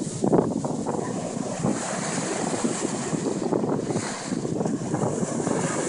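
Surf breaking and washing up the beach at the waterline, with wind buffeting the microphone.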